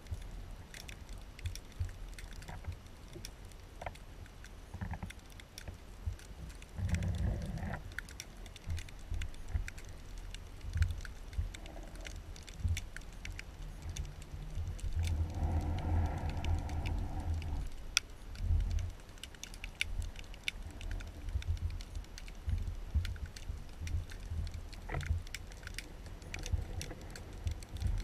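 Underwater sound picked up by a GoPro in its waterproof housing: scattered sharp clicks and crackles with low knocks and rumble. Two short muffled pitched sounds come through, about 7 seconds in and for a couple of seconds around the middle.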